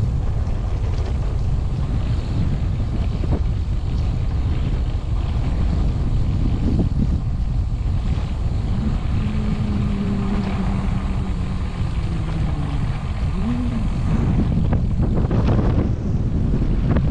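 Heavy wind buffeting on the camera microphone while riding a bicycle along a chip-sealed gravel road, with tyres crackling over loose stones. For a few seconds past the middle a steady low hum joins in, ending with a brief rise in pitch.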